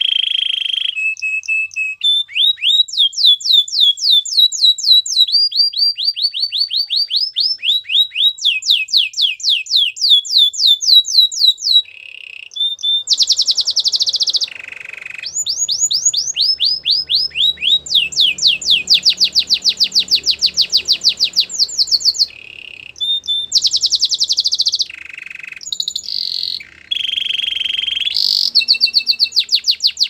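Canary singing a long song of trills: fast runs of repeated notes, some sweeping upward and some held on one pitch, linked phrase after phrase with short breaks. The song stops abruptly at the end.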